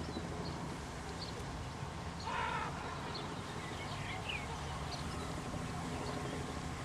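Outdoor ambience with no siren sounding: a steady low rumble with scattered short bird chirps, and one brief, louder, harsher sound about two seconds in.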